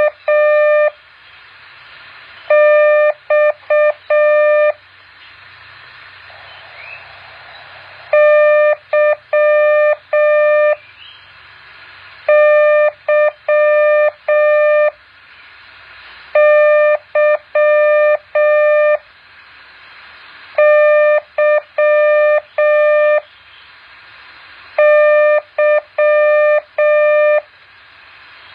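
Morse code practice: a steady mid-pitched beep keyed on and off in dots and dashes. It is sent as short groups of a few characters about every four seconds, with a faint hiss in the pauses between groups.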